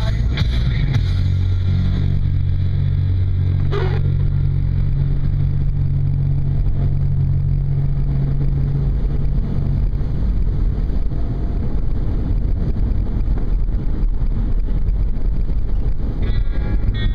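A car being driven: a steady engine drone over road rumble. The drone drops away about ten seconds in, leaving the rumble.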